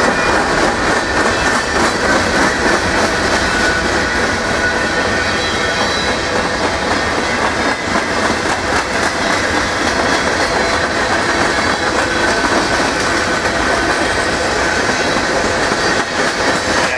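Freight cars of a passing manifest train rolling by, first tank cars and then covered steel-coil cars: a steady loud rumble of steel wheels on the rails with rhythmic clicking over the rail joints and a faint high wheel squeal.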